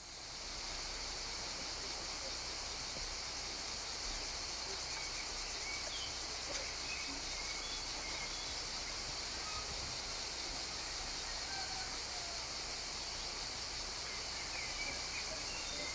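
Steady, shrill chorus of insects with a fast, even pulse, fading in at the start and holding level throughout.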